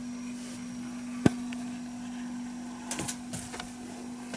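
Steady hum of a small motor or electrical appliance, with one sharp click about a second in and a few light knocks and rustles near the end.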